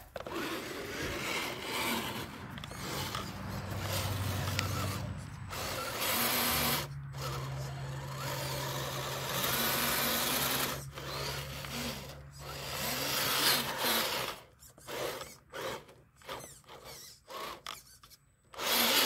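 Redcat Gen8 RC crawler's electric motor and geared drivetrain whining under throttle as its tyres dig and spin through loose dirt. The sound is continuous for most of the time, then breaks into short stop-start throttle bursts over the last few seconds.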